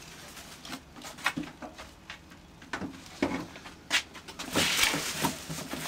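Bubble-wrap packing rustling and crinkling, with scattered knocks and scrapes against a large corrugated cardboard box as parts of an RC model plane kit are unpacked.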